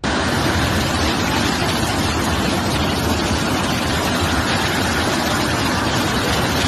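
Loud, steady rushing noise of a flash flood, floodwater and heavy rain. It starts abruptly at a cut.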